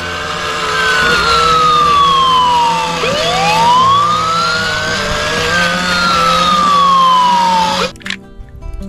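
Electronic wail siren of a Huina remote-control toy fire truck, a single tone slowly falling, rising and falling again, cutting off abruptly near the end.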